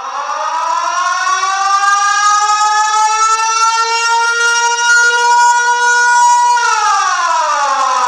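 Air-raid siren wailing: the pitch rises slowly and levels off into a steady howl, then starts to fall in a long wind-down near the end.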